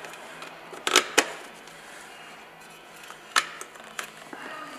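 Knife blade cutting lengthwise through a used oil filter's pleated element and metal band, giving a few sharp scrapes and clicks: two close together about a second in, two more near the end.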